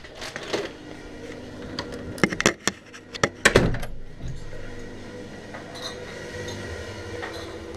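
Dishes and cutlery clinking and knocking, with a few sharp knocks about two seconds and three and a half seconds in.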